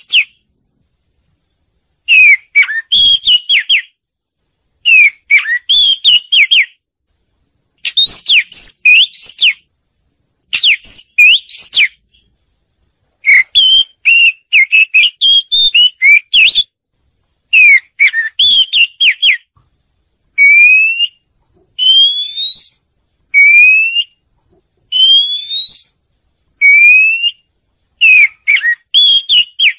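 Oriental magpie-robin singing: loud, varied whistled phrases a second or two long, separated by short silent gaps. In the second half the song turns to a run of single rising whistles, one every second or so.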